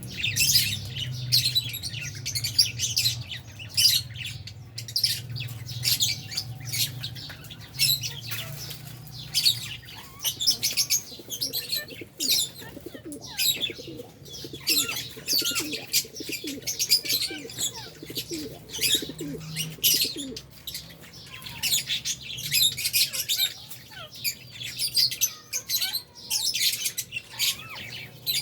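A colony of Fisher's and albino lovebirds chirping nonstop, many shrill chirps overlapping in quick succession, with a low hum under the first half.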